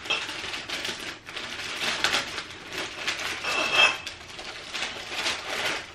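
A plastic gift bag crinkling and rustling steadily as it is opened and a glass bottle is pulled out of it. There is a brief ringing clink of glass about three and a half seconds in.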